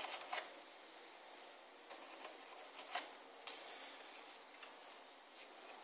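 Faint scratching and small clicks of a hobby knife working a small hole into a foam model-aircraft wing part, with one sharper click about three seconds in.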